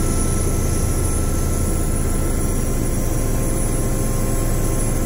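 Westland Wasp helicopter heard from inside its cockpit on the approach to land: a loud, steady drone of turbine and rotors with a thin high whine over it.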